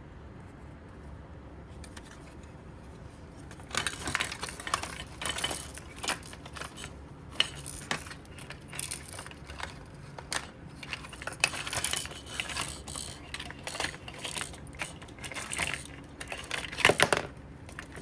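Hard plastic parts of a toy projector clicking, rattling and clattering as they are handled and pried apart. The clicks come in quick, irregular runs starting about four seconds in; before that there is only a faint low hum.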